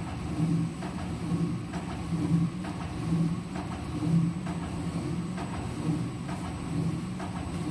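Automatic paper roll sheeter cutting thin paper into sheets: a low thud from each cut comes about every 0.9 seconds, about 70 cuts a minute, over the machine's steady running hum.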